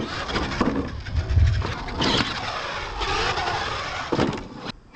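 Radio-controlled monster truck's motor whining up and down in pitch as it is throttled hard across the dirt, with several thumps as the truck hits the ramps and lands. The loudest thump comes a little over a second in. The sound breaks off briefly near the end.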